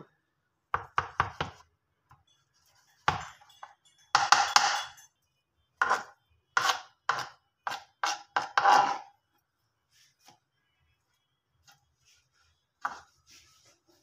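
Chef's knife chopping a thin omelette into small pieces on a plastic cutting board: sharp knocks of the blade on the board in quick runs of strokes, then a pause and one last stroke near the end.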